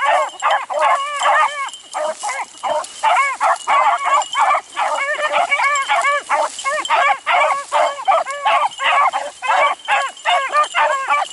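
A pack of beagles baying without pause, several voices overlapping in quick repeated calls, a few a second: hounds giving tongue on a rabbit's trail.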